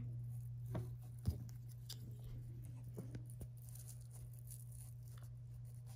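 Faint handling sounds of a pipe cleaner being twisted onto a popsicle-stick craft: a few soft clicks and rustles, the sharpest about a second in, over a steady low hum.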